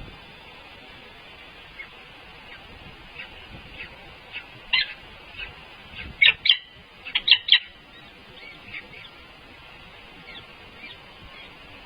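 Short, high-pitched bird chirps, a few scattered at first and then in quick loud clusters about five to seven and a half seconds in, fading to faint chirps.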